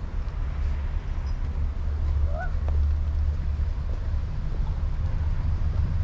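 City street ambience with a steady low rumble of traffic, and one short call that rises and falls, about two seconds in.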